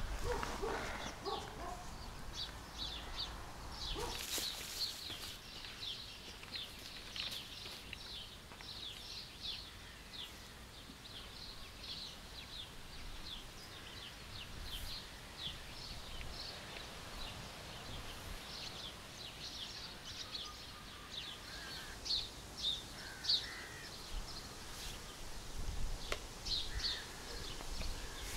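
Small birds chirping: short high notes repeated about two or three times a second, with a few longer, lower calls near the end.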